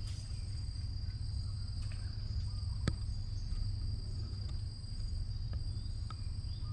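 Insects in mangrove droning steadily at two constant high pitches, over a low rumble, with a few faint bird chirps and one sharp click about three seconds in.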